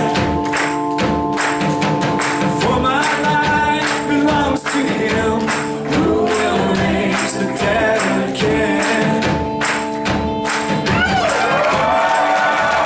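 Live worship band playing a song with singing: sustained keyboard chords, regular drum and tambourine hits and voices. Near the end the singing stops and clapping begins.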